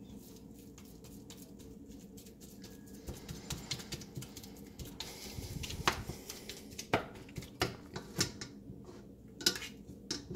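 A slotted spatula scraping and tapping against a stainless steel skillet as raw ground beef is broken up and pushed around. The scrapes and clicks are irregular, sparse at first and more frequent and louder after about three seconds.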